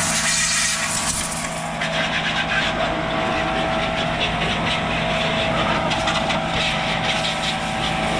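Pressure washer running steadily: the pump's hum under the hiss of a strong water jet spraying an electric scooter. The hiss loses its highest edge about two seconds in.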